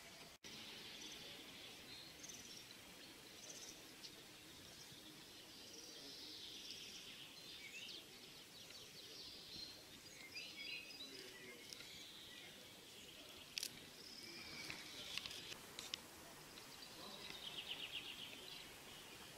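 Faint songbirds singing and chirping, several overlapping calls with a quick repeated trill near the end. A few sharp clicks come about two-thirds of the way through.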